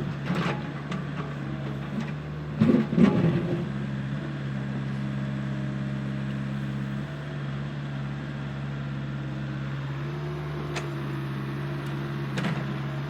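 Excavator's diesel engine running steadily, with a loud cluster of clanks and knocks about three seconds in and a few single knocks later.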